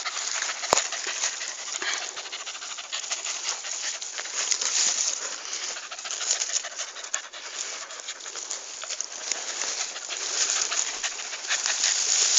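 Digging and scraping in soil and dry leaf litter, a continuous crackling rustle full of small clicks, as soil is cleared from around a buried truffle.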